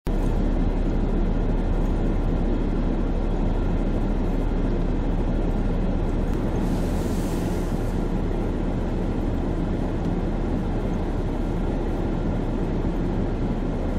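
Steady low rumble of a vehicle running, even in level throughout, with a short hiss about seven seconds in.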